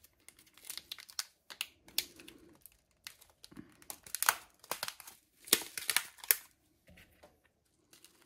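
Clear plastic film and a plastic bag of shaker bits crinkling as they are handled, in short irregular crackles.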